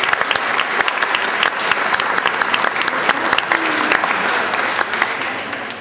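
Congregation applauding, many people clapping together, dying away near the end.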